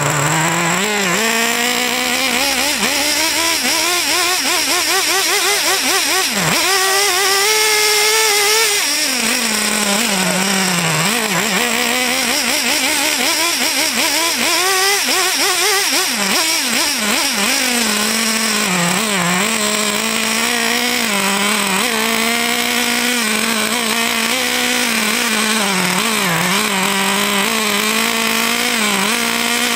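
Small high-revving RC car engine running without a break, its pitch climbing and dropping as the throttle is blipped. It revs highest a few seconds in, then mostly holds a lower, steadier note.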